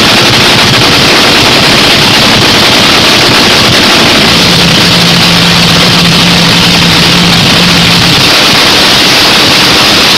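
Nitromethane-burning supercharged 500 cubic inch Top Fuel Hemi engine running in a pit warm-up, heard from right beside the car and so loud that the recording is pushed to its limit. About four seconds in its note steadies into a held tone for a few seconds, then loosens again.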